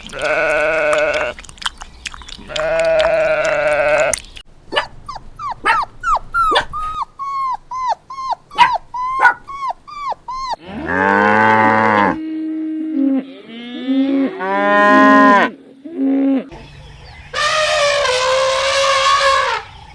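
A series of farm animal calls, each sounding on its own: two wavering sheep bleats of about a second and a half each, then a run of a dozen or so short, sharp, high calls. After that come several longer bleating calls, the last one drawn out for more than two seconds.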